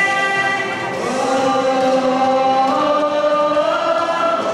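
Worship vocal group singing long held 'oh' notes through microphones over music, the held notes stepping upward in pitch as they go.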